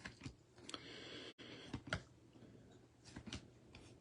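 Faint clicks and a short rustle of trading cards being handled and flipped through by hand, from a freshly opened pack.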